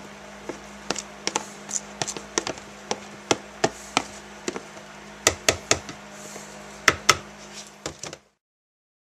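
Irregular knocks and taps of a wooden stick against a plastic bowl and bucket as thick hide paste is scraped out, about two or three a second and uneven, with a louder pair near the end; they stop abruptly about eight seconds in.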